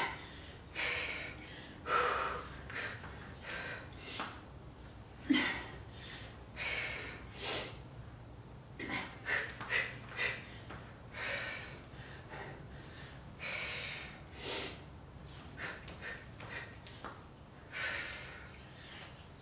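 A woman breathing hard during a climber and tricep push-up exercise, with short, sharp exhales about once a second.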